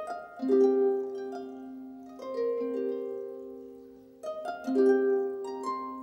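Instrumental music on a plucked string instrument: groups of notes and chords struck about every two seconds and left to ring and fade.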